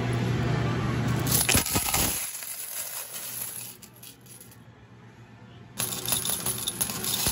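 Metal arcade medals clinking and clattering in a medal pusher machine as they slide and drop. The clatter is dense for about the first two seconds, quieter through the middle, and starts again suddenly about six seconds in.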